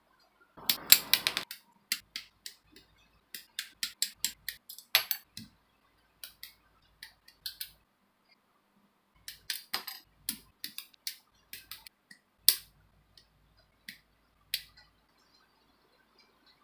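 Hard plastic Gunpla model-kit runners and parts being handled: many sharp clicks and taps in irregular clusters, with a short rustling scrape about a second in.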